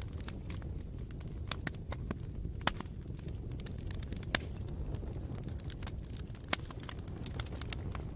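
Wood fire burning: a steady low rumble with irregular sharp crackles and pops scattered throughout.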